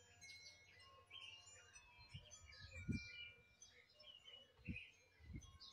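Faint small-bird chirps and short calls, scattered all through. A few soft low thumps, the loudest about three seconds in, come from collard leaves being picked and handled.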